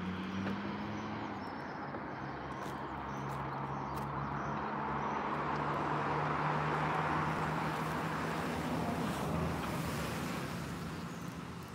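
Road traffic: a vehicle passing by, swelling to its loudest about six seconds in and then fading, over a steady low engine hum.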